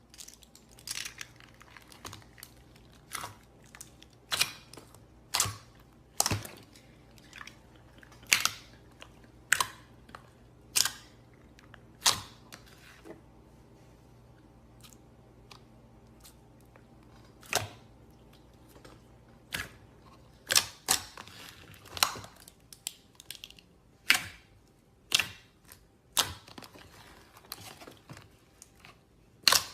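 Slime being squeezed and pressed by hand, giving irregular sharp pops and clicks about once a second, sometimes in quick clusters.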